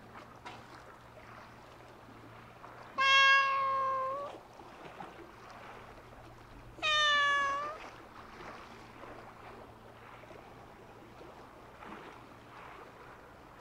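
A cat meowing twice: a long, drawn-out meow about three seconds in and a slightly shorter one about seven seconds in.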